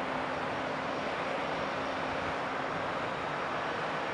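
Distant airliner jet engines running on the airfield: a steady rushing noise with a faint, steady low hum.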